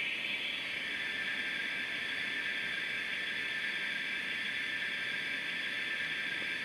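Steady, thin hiss of steam from the DCC sound decoder in a model GWR 14xx tank locomotive standing still, played through the model's small on-board speaker.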